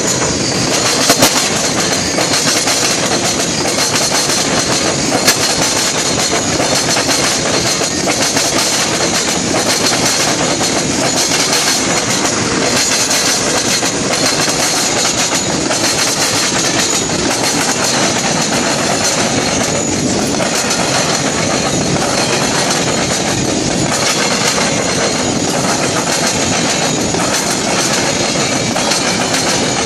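Freight cars of a Norfolk Southern manifest train rolling past close by: a loud, steady rumble of steel wheels on rail, with clickety-clack as the wheels strike rail joints and a diamond crossing.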